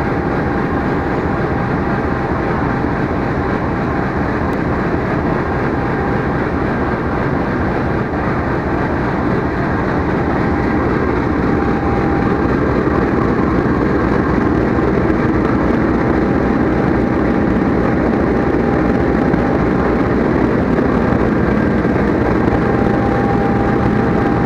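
Diesel-electric locomotive's engine idling while the locomotive stands still: a loud, even rumble with a faint steady whine. It grows slightly louder about halfway through.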